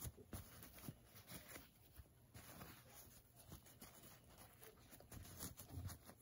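Faint, irregular rustling and crinkling of a disposable pleated surgical mask's non-woven fabric as it is pulled open and folded in half by hand.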